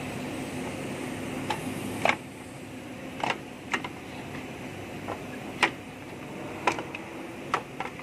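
Irregular sharp metallic clinks and taps, about nine of them, the loudest about two and five and a half seconds in, from tools and parts handled on a partly stripped engine, over a steady background hum.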